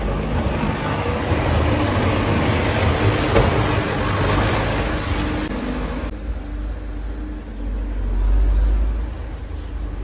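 Outdoor street ambience: wind rumbling on the phone's microphone under a steady hiss, with a faint steady hum. About six seconds in, the sound cuts abruptly to a duller hiss.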